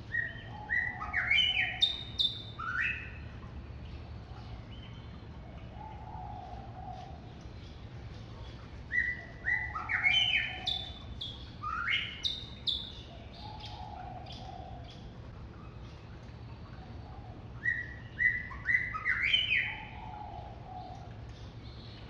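A songbird singing three phrases of quick whistled notes, each phrase climbing in pitch and lasting two to three seconds, several seconds apart. Softer low notes come in the gaps between the phrases.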